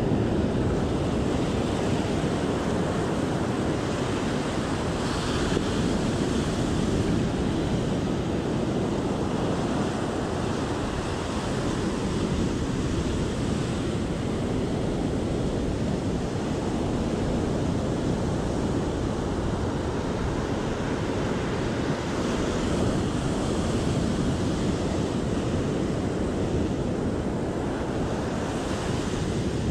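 Ocean surf breaking and washing up the beach, a steady rushing noise that swells and eases, with wind buffeting the microphone.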